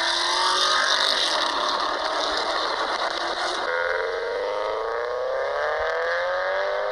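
Recorded car engine sounds from a sound quiz, one clip after another. A car engine runs first; about 3.7 seconds in it switches to a Subaru Forester's boxer four-cylinder accelerating, its pitch rising steadily.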